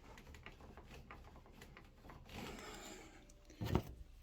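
Faint rubbing and clicking handling noises as a water hose is connected to an air-conditioning unit's fitting, with a brief rustle about two and a half seconds in and one loud knock near the end.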